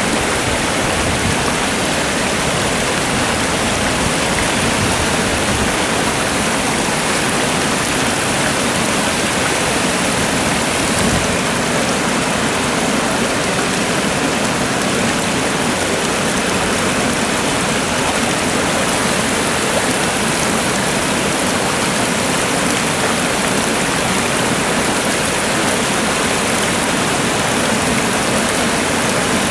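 Steady rush of river water spilling over a low concrete weir.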